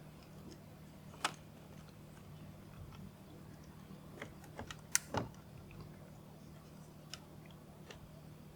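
Scattered small clicks and taps of plastic cable connectors and wiring being handled and plugged in, over a faint steady low hum. The loudest clicks come about a second in and about five seconds in, with a small cluster just before the second.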